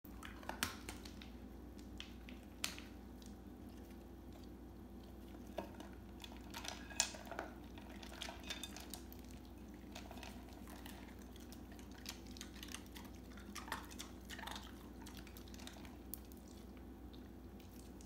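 Ice cubes clinking and shifting in a mixing bowl as a cat licks and noses at them: scattered sharp clicks and small clatters, the loudest about seven seconds in, over a low steady hum.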